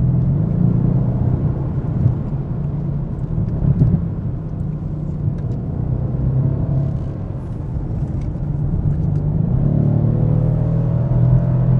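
Mercedes-AMG C-Class engine in Sport Plus mode pulling hard through the gears, heard from inside the car. Its note swells and falls back, then climbs again near the end.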